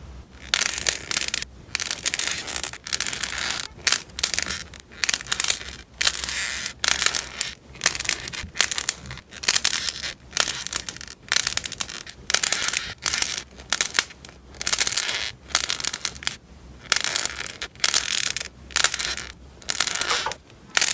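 Crunchy slime being squeezed and pressed by hand: a run of short crackling crunches, about one a second.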